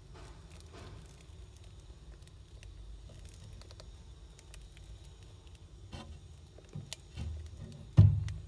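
A crowd of trapped house mice shuffling and scratching in a container: faint scattered clicks and scuffles over a low rumble. A few soft knocks come late, then a loud thump near the end.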